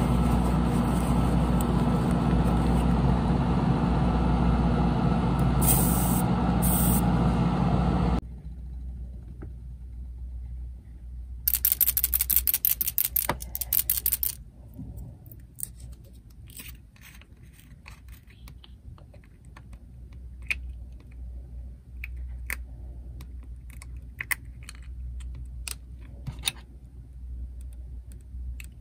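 A steady machine hum that cuts off suddenly about eight seconds in. Then a quick run of sharp clicks, and scattered light clicks and taps.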